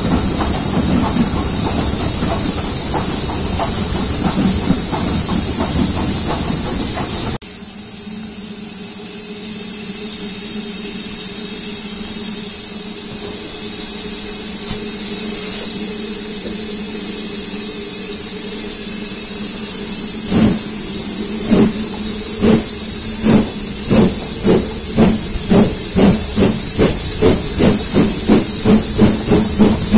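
Steam train heard from a carriage window: dense running noise with steam hiss that breaks off suddenly about seven seconds in. After that a steady steam hiss with a low hum, and about two-thirds of the way through the locomotive's exhaust beats come in, slow at first and quickening to over two a second.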